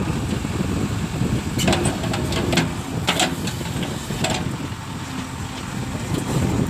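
Diesel engine running steadily, with a few sharp knocks and clatters between about one and a half and four and a half seconds in.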